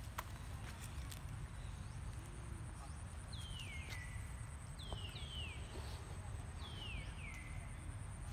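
Six short, high whistled animal calls in three pairs, each falling in pitch, over a steady low rumble.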